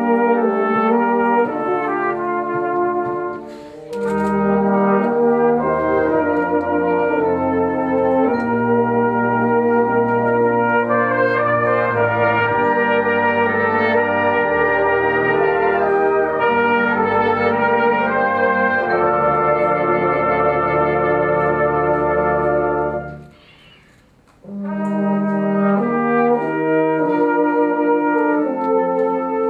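Brass band playing a duet with trumpet and euphonium soloists over the band's long-held chords. The sound dips briefly about three and a half seconds in, and near the two-thirds mark the music stops for about a second before the band comes back in.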